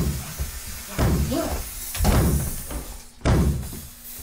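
Four heavy slamming thuds, about a second apart, each dying away quickly.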